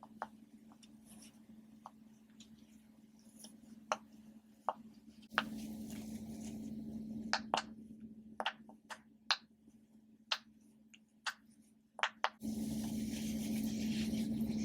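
Silicone pop-it fidget toy bubbles being pressed with the fingers, giving irregular sharp popping clicks, some single and some in quick runs. A steady low hum runs underneath, and a soft hiss rises in the middle and again near the end.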